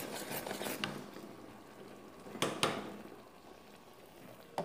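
A wooden spoon stirring and scraping thick Ovomaltine brigadeiro in a metal saucepan, cooked to the soft stage. Quick soft scrapes fade out after about two seconds, with two sharper knocks of the spoon against the pan about halfway through.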